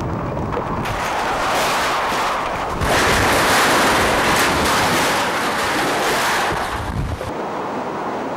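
Storm-force cyclone wind blowing hard and buffeting the microphone. About seven seconds in it gives way to waves surging and breaking over a seawall.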